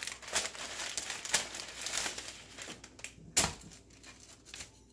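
Parchment paper and aluminium foil crinkling as a raw salmon fillet is dragged with metal tongs from the paper onto a foil-lined baking sheet. There is dense crackling for about three seconds, a single sharp tap about three and a half seconds in, then lighter rustles.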